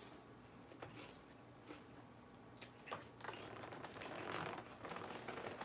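Close-up eating sounds of crunchy lettuce being chewed: scattered small clicks at first, then a louder, denser stretch of crunching in the second half.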